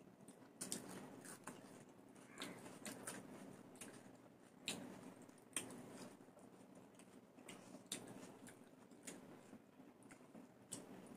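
Faint eating sounds: chewing and mouth smacks with fingers working fried rice on plates, heard as irregular soft clicks and smacks about once or twice a second.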